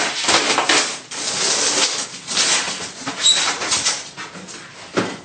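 Vinyl-backed garage door insulation panel rustling and scraping as it is handled and cut, in a series of noisy strokes about once a second, with a sharp knock near the end.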